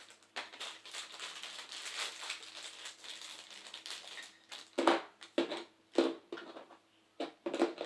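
Plastic packaging crinkling as it is handled, followed from about five seconds in by several sharp knocks and clicks of hard plastic parts being picked up and set down.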